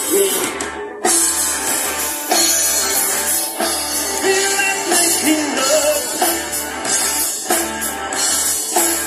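Live rock band playing through a PA: electric guitars and a drum kit, with a singer.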